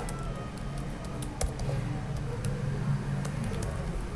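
A few scattered computer keyboard clicks over a steady low hum.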